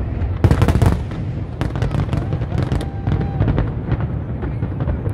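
Fireworks going off: a rapid cluster of loud bangs about half a second in, followed by a scatter of sharper cracks and crackling from bursting shells.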